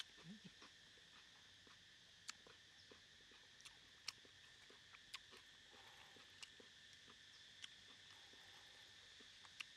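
Very faint forest ambience: a steady, high insect drone with scattered small clicks and crackles.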